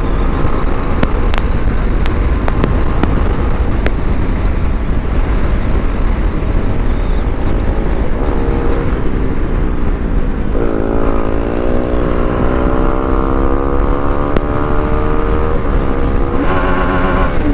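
BMW G310RR single-cylinder motorcycle engine running on the move under steady wind rush on the microphone. From about ten seconds in, the engine note climbs slowly as the bike accelerates.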